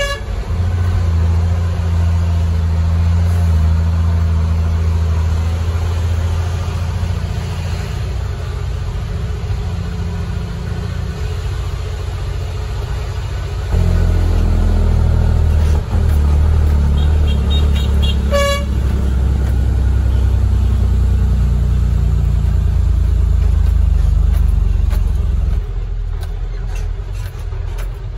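Heavy truck's Cummins ISM straight-six diesel running with a steady low drone, getting louder about halfway in and easing off near the end. A short horn toot sounds about two-thirds in.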